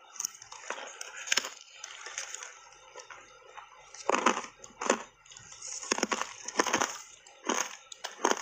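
Crunching of a reshaped ice block coated in matcha powder being bitten and chewed: a few soft crunches early, then a run of loud, sharp crunches from about four seconds in.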